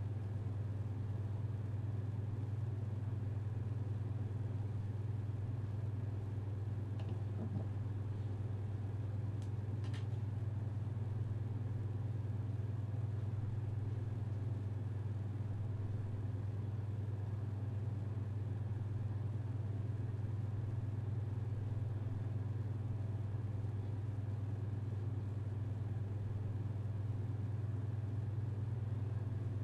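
A steady low hum, unchanging throughout, over a faint hiss, with a couple of faint ticks about 7 and 10 seconds in.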